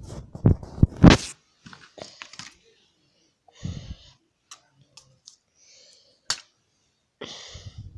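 Handling noise from a phone box and its packaging: a few loud knocks in the first second and a half, then scattered clicks and short rustles.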